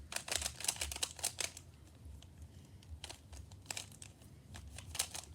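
Handling noise from hands on an object close to the microphone: a quick run of clicks and crinkles for about the first second and a half, then scattered single clicks.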